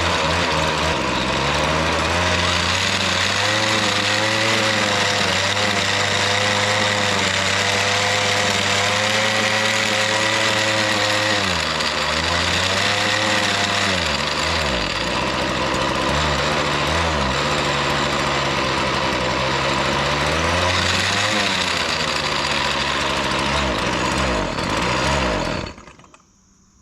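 Lawn edger's small engine running on half choke, its speed sagging and picking up again a few times, then dying suddenly near the end. It stalls when the throttle is opened fully, which the owner suspects is a carburettor adjustment.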